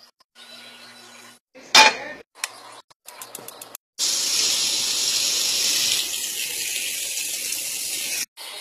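A loud knock, then a quick run of clicks from a gas stove's igniter, then a steady, loud sizzle of fish fillets frying in a pan that cuts off suddenly near the end.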